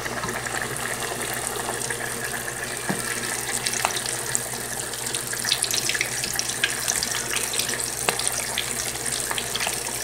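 Flour-dredged chicken deep-frying in hot oil in a pot: a steady sizzle with scattered crackles and pops.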